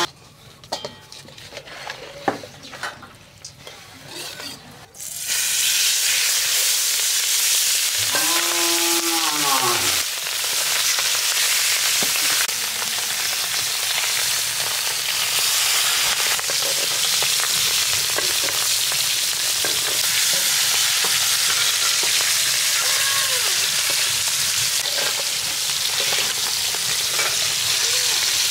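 Pieces of marinated rohu fish frying in hot oil in a pan: after a few seconds of light crackling, a loud sizzle starts suddenly as the fish goes into the oil, then keeps up steadily.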